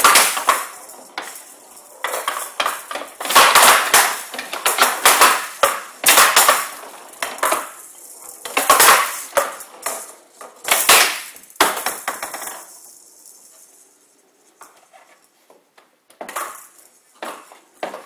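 Showdown rally: the yellow Showdown ball, rattling with the metal pellets inside it, is struck back and forth with wooden bats and clatters against the wooden table's side walls. There are sharp hits every second or so. They stop about 12 to 13 seconds in, and a few lighter knocks follow near the end.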